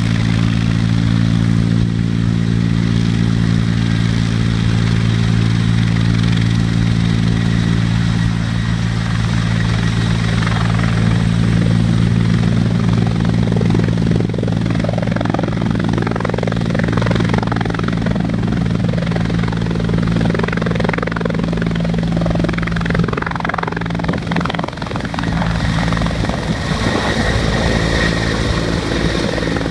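Air ambulance helicopter's engine and rotor running with a steady low drone. A rougher rushing noise builds over it through the middle and fades again near the end.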